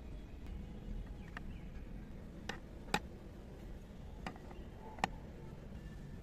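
Small sharp clicks and taps of a miniature vase being set down and shifted on a tiny toy kitchen countertop, about six in all, the two loudest near the middle and about five seconds in.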